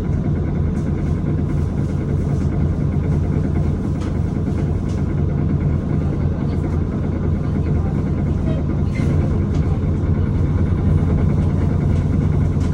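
2015 Nova Bus LFS running, a steady low engine drone and rumble, with a few short sharp clunks at irregular intervals. The clunks are the odd clunking noise that the bus is making.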